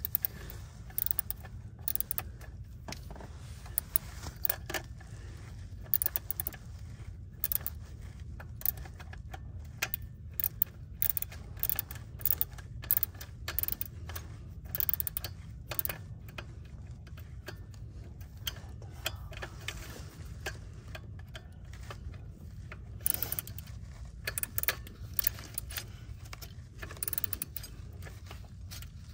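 Hand ratchet clicking in quick, irregular runs of short strokes as a bolt is tightened, with a steady low hum underneath.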